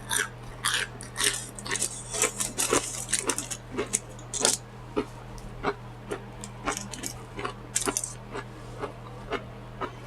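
Crunching and smacking of fried onion rings being chewed close to the microphone: irregular crisp crackles and wet mouth clicks, with a faint steady electrical hum underneath.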